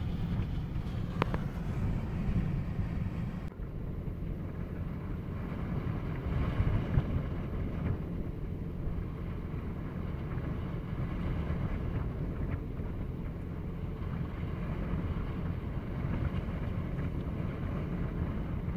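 Strong sandstorm wind blowing over the microphone: a low, uneven rumble that rises and falls. About three and a half seconds in, the sound changes abruptly and the higher hiss drops away.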